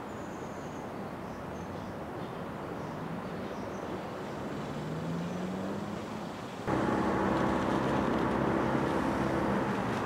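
Road traffic noise with one vehicle engine rising in pitch as it speeds up in the middle. About two-thirds in, the sound suddenly gets louder and a steady engine hum takes over.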